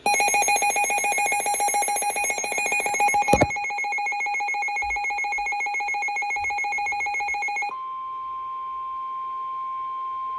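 Emergency Alert System alert on NOAA Weather Radio for a severe thunderstorm warning. For about the first eight seconds, a rapidly pulsing, buzzy electronic alarm beep sounds, with a sharp click partway through. The beep then stops, leaving the broadcast's single steady warning alarm tone.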